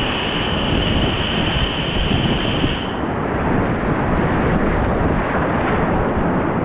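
Whitewater of a steep alpine river, the upper Ötztaler Ache, rushing loudly and continuously around a kayak, heard as a dense noise with buffeting on the microphone. A high hiss in it drops away about three seconds in.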